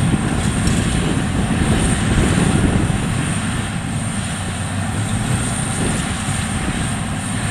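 WD102 Pro rice combine harvester running steadily under load as it cuts and threshes standing rice: a continuous engine drone with machinery noise.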